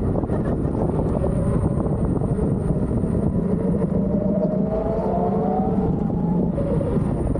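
Steady rush of wind and road noise from riding an electric unicycle, with a rising whine that climbs in pitch about halfway through.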